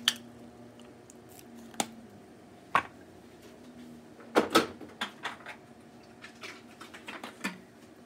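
Scattered clicks and knocks of kitchen items being handled, the loudest a pair of knocks about halfway through, followed by a run of lighter clicks. A faint steady hum sits underneath for the first couple of seconds.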